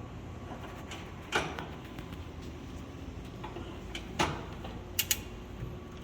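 A few sharp metallic clicks and knocks, one about a second and a half in and three more around four to five seconds in, from a ratchet puller being tensioned to slide a locomotive sideways on greased tie plates.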